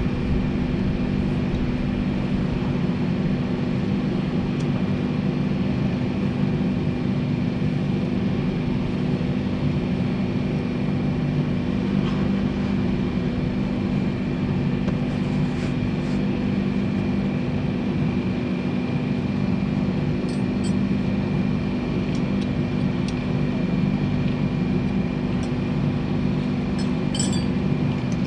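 Steady machine drone holding one pitch, with a few light clinks in the last few seconds.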